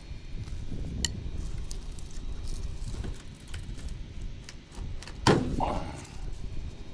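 Handling and rustling noise of hands-on yard work picked up by a body-worn camera: a low rumble with scattered light clicks, and one sharp knock about five seconds in followed by a brief rattle.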